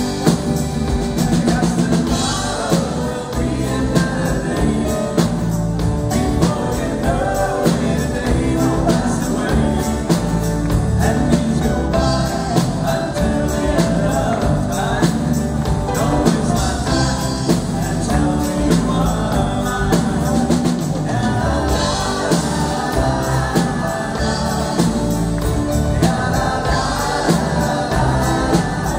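Live pop band playing a song: acoustic guitars, bass guitar and drums, with several voices singing together.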